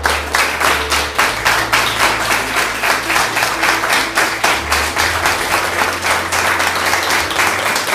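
Audience applauding: a dense, continuous run of handclaps.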